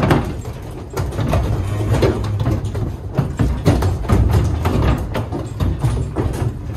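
Heifers' hooves knocking and scraping on the wooden ramp and floor of a livestock trailer as they shift and turn, with many short knocks over a steady low rumble.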